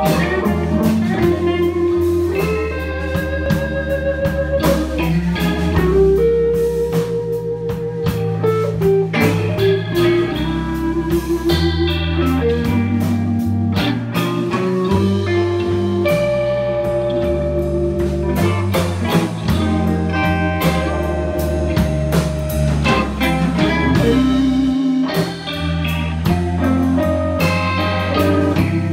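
Live blues band playing a slow blues: an electric guitar lead with long held notes that waver in pitch, over bass and a drum kit.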